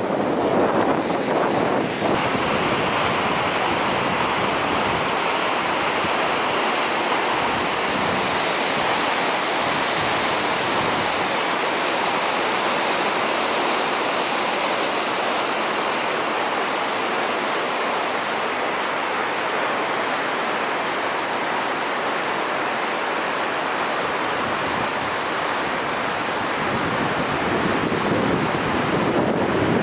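Waterfall rushing: a steady, loud wash of water noise that gets brighter about two seconds in.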